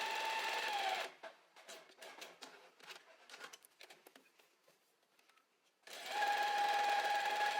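Domestic sewing machine running at a steady speed, stitching a test seam in jersey fabric. It stops about a second in, leaving small clicks and fabric handling. It starts again about six seconds in and runs to the end.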